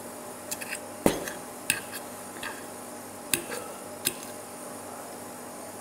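A metal fork clinking and scraping on a ceramic dinner plate while salad is picked up and eaten: a series of sharp clicks, the loudest about a second in, then scattered ones until about four seconds in.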